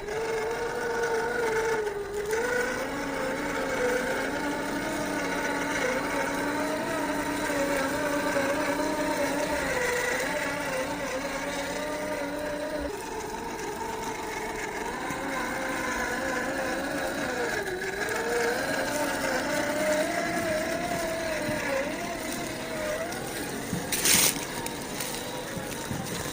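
Brushed 550-size, 21-turn electric motor and gear drivetrain of a 1/10-scale RC rock crawler whining, its pitch rising and falling with the throttle as it crawls. A single short, sharp knock comes a couple of seconds before the end.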